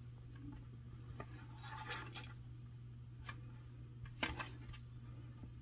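Faint rustling of thin cord and a few soft clicks as hands pull through and tighten half of a macramé square knot, over a low steady hum.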